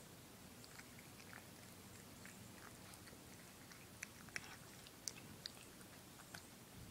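A cat eating soft, rehydrated wet food from a bowl: faint chewing and mouth clicks, with a few sharper clicks between about four and five and a half seconds in.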